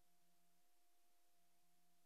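Near silence: the footage has no recorded sound, only a faint steady electrical hum and hiss.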